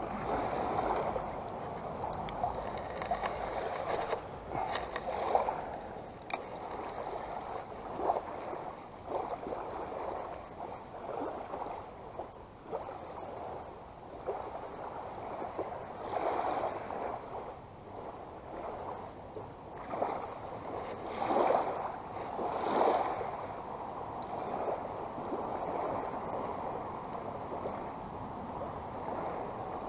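Small waves lapping and sloshing against the shore in irregular surges, a few louder than the rest.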